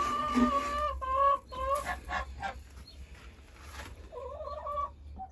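Broody domestic goose on her nest giving drawn-out, steady-pitched calls, a long one at the start, two short ones, then a wavering call near the end, with a few soft clicks in between.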